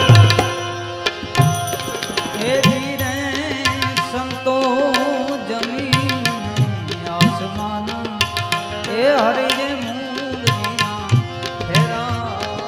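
Tabla drumming in a quick, dense rhythm under a wavering melodic line, as live devotional folk music.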